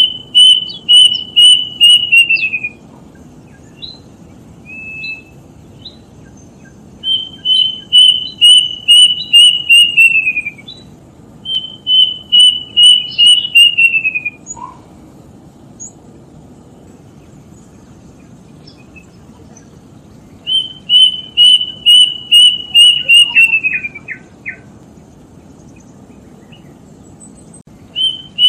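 A bird calling in phrases of about eight to ten quick, clear whistled notes, even in pitch and then dropping at the end of each phrase; four such phrases with pauses between and a few single notes in the gaps.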